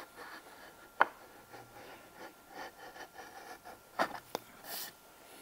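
Hand-held steel-bladed edge trimmer shaving a chamfer along a hardwood (jarrah) edge: faint, short scraping strokes as the blade peels off a curl of wood. A sharp click comes about a second in, and two more near four seconds.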